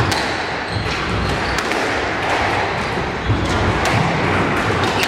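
Squash rally: the ball knocks sharply off rackets and the court walls every second or two, the loudest about two-thirds of the way through. The players' footsteps on the wooden floor and the murmur of the hall run underneath.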